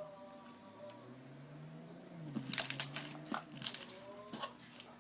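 Slime being squeezed and worked by hand, crackling and popping in a quick cluster of clicks from about two and a half seconds in, under a faint pitched hum.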